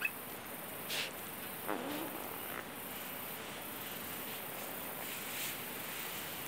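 Steady high-pitched chorus of insects, with a few short chirps and one short falling squeak about two seconds in.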